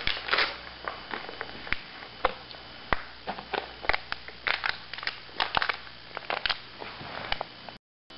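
Empty plastic water bottle being twisted and squeezed, crinkling and crackling in many irregular sharp cracks.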